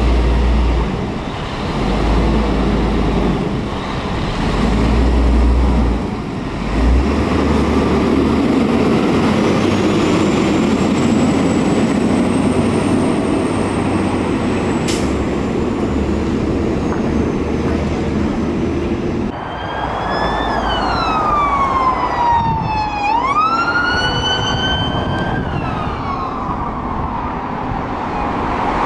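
Road traffic noise with a low rumble for the first two-thirds. Then, after a sudden change, an emergency vehicle's electronic siren wails: it falls slowly in pitch, sweeps quickly back up, and falls again.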